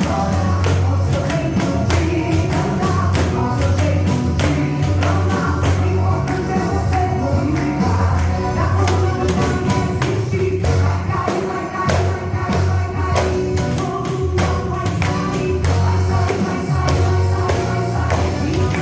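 Pandeiro (Brazilian tambourine) played in a quick, steady rhythm, its jingles ringing out over gospel music with a strong bass line.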